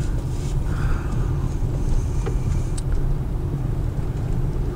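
Car driving along a gravel road, heard from inside the cabin: a steady low rumble of engine and tyres, with a couple of faint ticks.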